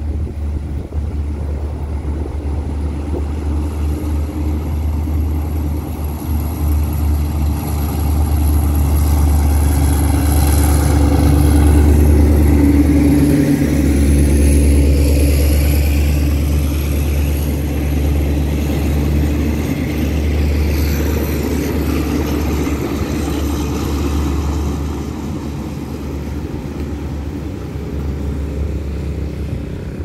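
Alsthom diesel-electric locomotive of Thai State Railway approaching with a steady low engine rumble, loudest about twelve seconds in as it passes. Its passenger coaches then roll by, and the sound fades as the train moves away.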